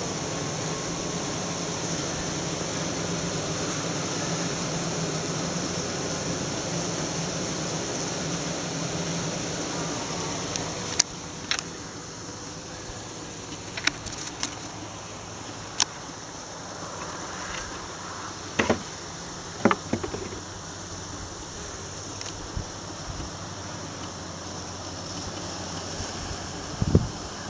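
Many honeybees buzzing in a steady, continuous hum around extracted honeycombs. The hum drops noticeably in level about eleven seconds in, and several short sharp clicks come over it in the second half.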